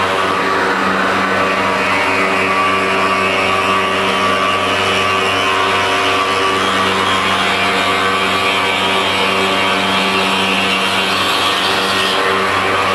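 CNC stone-cutting machine running steadily, its spindle motor humming, with a higher cutting hiss that comes in about half a second in and changes near the end.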